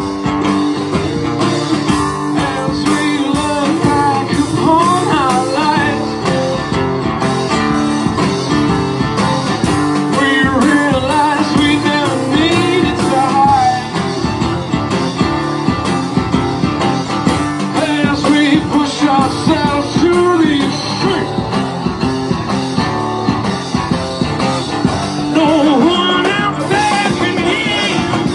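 Live rock band playing an instrumental passage: electro-acoustic guitar strummed hard over a drum kit with cymbals, with a voice singing gliding lines over it in places.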